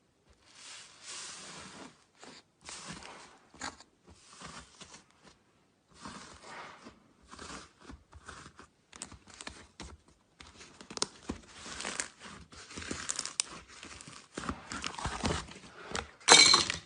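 Slime being worked by hand, making a run of short crackling and popping sounds in irregular bursts, with a louder burst near the end.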